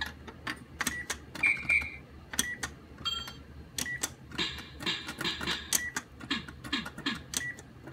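Plastic buttons on an Anpanman Ookina Yokubari Box activity toy clicking as they are pressed rapidly and irregularly, with short high electronic beeps from the toy between the clicks.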